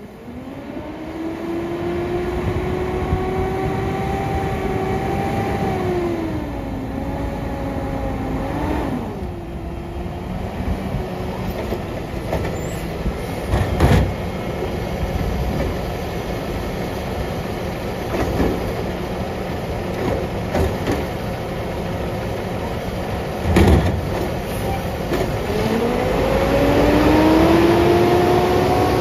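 Peterbilt garbage truck with a Labrie Automizer side-loader body running, with a whine that rises as the truck pulls up and another that rises again near the end as the automated arm works. Two sharp bangs about ten seconds apart in the middle as the cart is picked up and dumped into the hopper.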